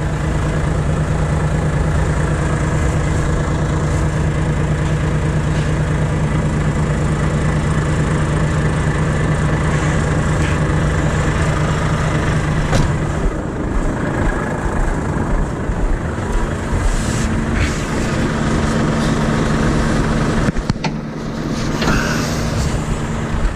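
Volvo FH500 truck's diesel engine idling steadily with a low hum; its tone shifts about halfway through, then settles again with a higher steady tone. A sharp knock comes near the end.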